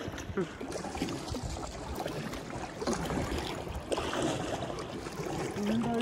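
Shallow river water running steadily around a small paddle boat.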